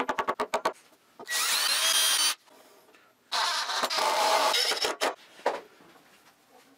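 Power drill running in two bursts of about a second each, with a whining motor, driving screws through a hairpin leg's steel mounting plate into a honeylocust slab. A quick run of clicks comes at the start, and a few single clicks come later.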